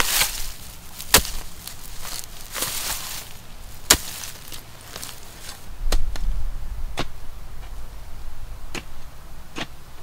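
A hand hoe chopping into soil and dry leaf litter: sharp knocks at irregular intervals of about one to two seconds, with the rustle and scrape of loosened earth and leaves between strikes.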